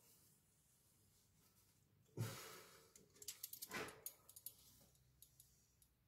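A man's breathing as he strains: two heavy exhales, the first about two seconds in and the second about a second and a half later, with faint small clicks between them. Otherwise near silence.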